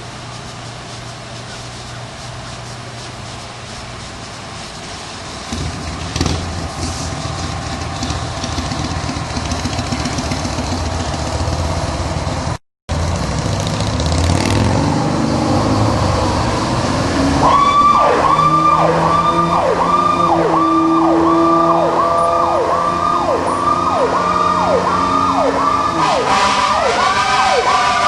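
A 1992 E-One Hurricane heavy rescue truck's engine runs steadily, then gets louder as the truck gets under way. About two-thirds of the way in, sirens start: a rising wind-up, then an electronic Powercall siren yelping about twice a second. Partway through the yelping there is a steady air-horn-like tone, and the mechanical Q siren is named for this response.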